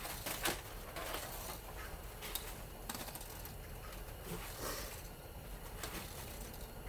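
Faint handling noises from a small electric motor being taken apart by hand: scattered light clicks, scrapes and rustles as its windings are worked loose.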